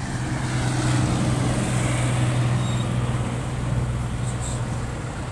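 Street traffic: a motor vehicle's engine running close by with a steady low hum over road noise.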